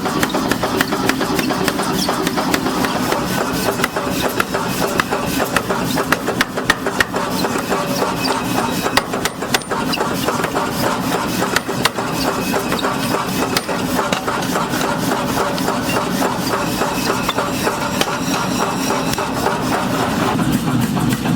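Rapid, repeated hammering on sheet steel from old oil drums, over a steady engine hum.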